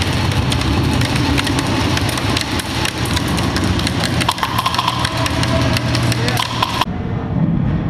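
Airsoft guns firing in scattered sharp clicks, with voices in the background.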